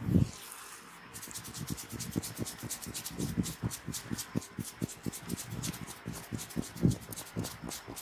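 Fingers rubbing briskly through oiled hair in a head massage: a fast, rhythmic, scratchy rustle of several strokes a second that starts about a second in, each stroke with a soft low pulse. It is preceded by a dull thump at the very start as the hands leave the ears.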